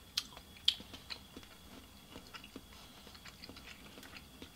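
A person chewing a mouthful of tteokbokki and ramen, with a few sharp mouth clicks in the first second, then fainter, softer clicks.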